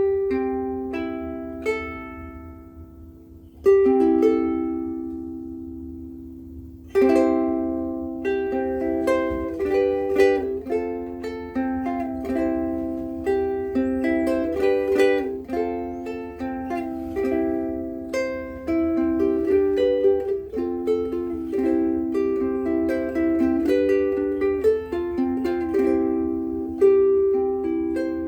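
Kala Metropolitan solid Trembesi-wood soprano ukulele, strung with Worth Brown Lights, being played. A chord is struck at the start and left to ring out, another about four seconds in, then a steady run of notes and chords from about seven seconds in. The owner finds the tone a little quiet and small-sounding.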